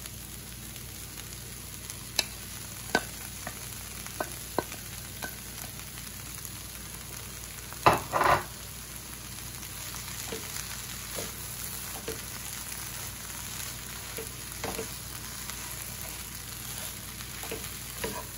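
Sliced onions sizzling steadily in a frying pan as grated carrot is added and stirred in with a wooden spoon. Scattered taps and scrapes of the spoon against the pan, with one louder clatter about eight seconds in.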